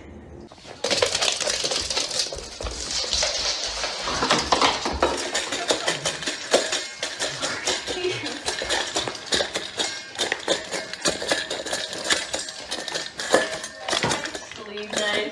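A dog eating from a stainless-steel bowl on the floor, the metal bowl clinking and clattering rapidly and without pause from about a second in.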